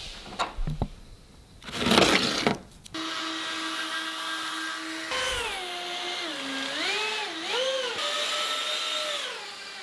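Electric ducted fans of a small 3D-printed RC hovercraft whining, their pitch dipping and rising with the throttle. A brief loud rush of noise comes about two seconds in, before the steady whine sets in.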